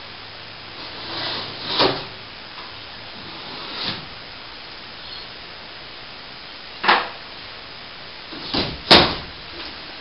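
Pieces of plasterboard ceiling being pulled down and falling: a series of about five short crashes and knocks, spread unevenly, with two close together near the end, the second the loudest.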